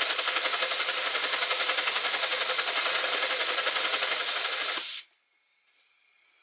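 Gauge one three-cylinder model locomotive with Gresley conjugated valve gear running in reverse on compressed air: a steady, loud hiss of air through its cylinders and exhaust. The hiss cuts off suddenly about five seconds in as the air supply is shut off.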